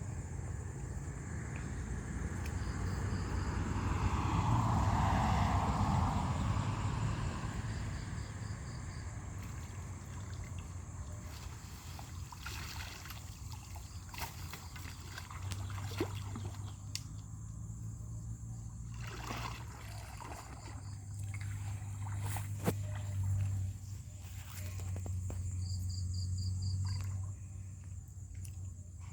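Outdoor ambience: a steady high insect drone with pulsing chirps, water trickling and splashing, and a few sharp knocks. The loudest stretch is a noisy swell a few seconds in.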